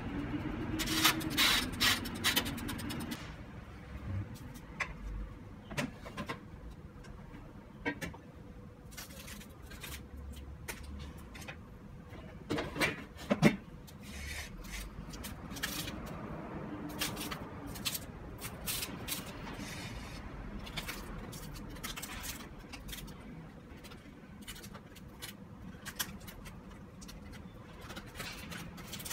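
Aluminium foil crinkling and crackling in scattered short bursts as foil-wrapped food is unwrapped on a plate, with a few louder knocks about halfway through. Near the start a toaster oven's timer dial is turned, and a low hum stops about three seconds in.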